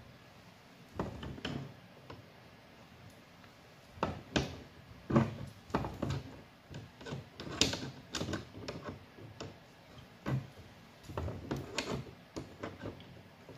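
Irregular knocks and clicks of PVC pipe and fittings being handled and pushed together, sparse at first and coming thick and fast from about four seconds in.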